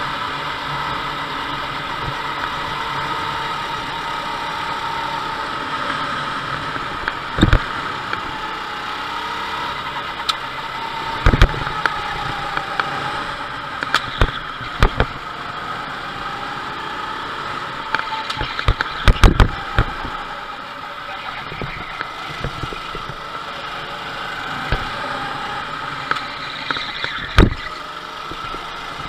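Go-kart engine running heard from on board, its pitch rising and falling as the kart accelerates out of corners and backs off into them. A handful of short sharp knocks cut through it, the loudest a quick cluster about two-thirds of the way through and another near the end.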